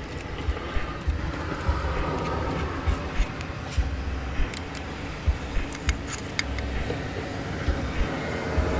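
Small sharp metal clicks and taps, bunched in the middle, as a sensor bolt and a hex key are handled. Under them runs a steady low rumble with irregular low thumps.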